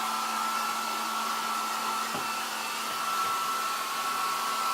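Hair dryer blowing steadily, an even rushing noise with a steady whine from its motor and fan.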